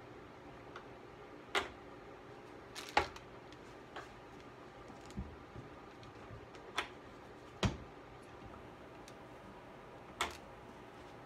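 Scattered clicks and knocks of tools and packets being handled on a wooden workbench, including a couple of deeper thuds, over a faint steady hum.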